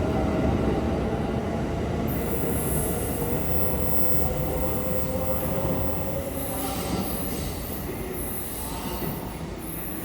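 Train moving along a station platform: a rumble with a steady whine that sinks slightly in pitch, with wheel squeal, gradually fading.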